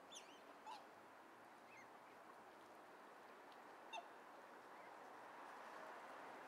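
A few faint, short, high bird peeps, each gliding down in pitch: two or three in the first two seconds and a louder one about four seconds in, over a faint steady hiss.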